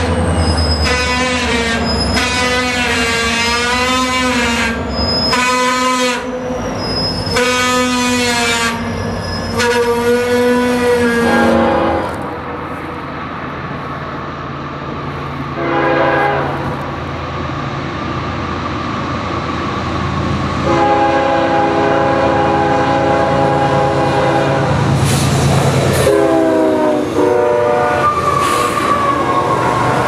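Diesel freight locomotives sounding multi-note chord horns at grade crossings. Norfolk Southern locomotives pass with repeated long blasts; then a second train approaches with a short blast about halfway through and a long blast, its horn dropping in pitch as it passes, followed by the steady rolling and clatter of double-stack intermodal cars.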